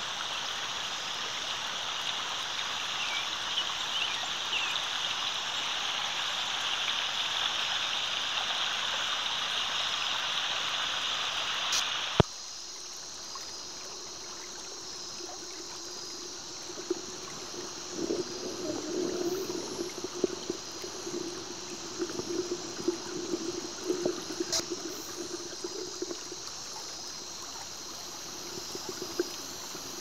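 Shallow mountain creek running over rocks: a steady rush of flowing water. About twelve seconds in it cuts off abruptly with a click. A quieter, muffled sound follows, recorded with the camera underwater in the creek: a low steady hum with scattered crackles and knocks.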